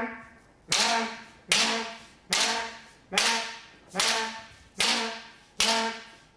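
Rapid series of kendo sayu men strikes, seven in a row about one every 0.8 seconds. Each one is a sharp hit with a shouted kiai "men!" that fades quickly.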